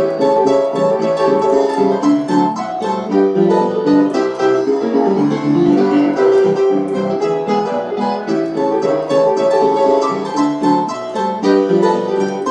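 Upright piano played with both hands: a continuous flow of notes and chords, mostly in the middle register.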